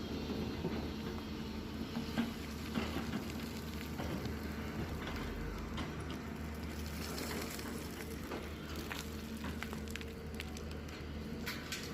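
Hyundai excavator's diesel engine running steadily, with a crackling, clattering noise of soil and stones over it and scattered sharp knocks, more of them in the second half.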